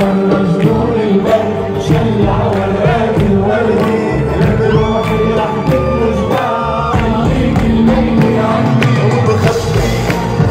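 Live Arabic pop music from an on-stage orchestra with a singing voice, several held sung notes about halfway through.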